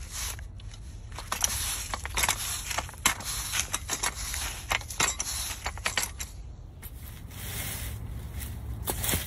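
Crunching and scraping over dry leaves and a dirt path, in dense irregular strokes from footsteps. About two-thirds of the way through it changes to a softer, steadier scraping from a long-handled garden tool worked over the leaf-littered ground, with a few sharper scrapes near the end.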